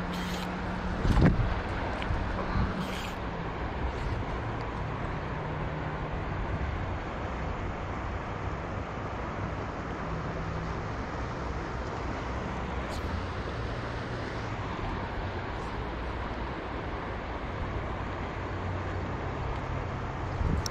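Steady rush of river water, with a sharp knock about a second in and a smaller one a second or so later.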